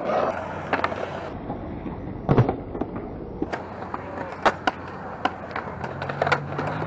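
Skateboards on a concrete skatepark: wheels rolling with a steady rumble and many scattered sharp clacks of boards popping and slapping down, the loudest hit about two and a half seconds in.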